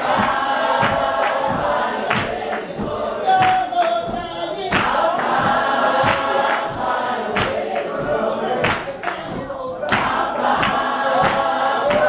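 Gospel singing by several voices, accompanied by steady rhythmic hand-clapping on the beat.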